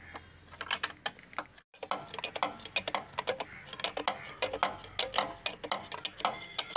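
Irregular metallic clicks and taps, several a second, of a screwdriver and loosened fittings as a scooter's carburettor is undone for removal.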